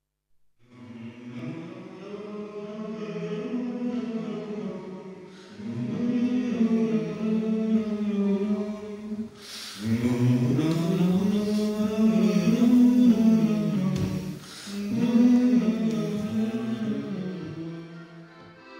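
A small group of men singing a sea shanty unaccompanied, in four phrases with short breaths between them.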